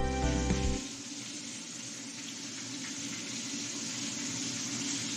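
Background music stops about a second in and gives way to a steady rushing hiss.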